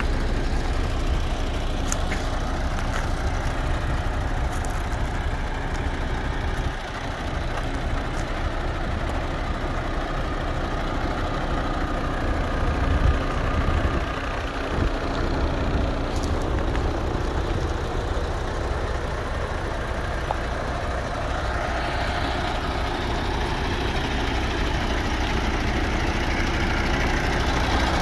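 MAN TGX 480's D26 diesel engine idling steadily, a low, even running sound.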